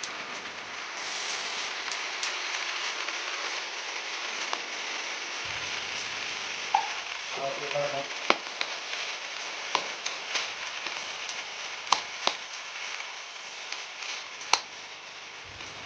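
Food sizzling in hot cooking oil in a pan, a steady hiss with frequent sharp pops and crackles.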